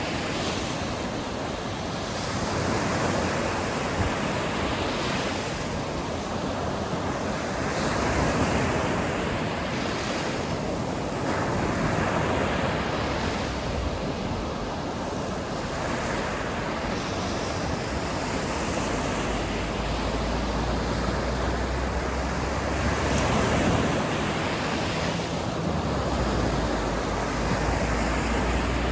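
Sea waves breaking and washing onto the shore, swelling and easing every few seconds. A steady low rumble of wind on the microphone comes in about two-thirds of the way through.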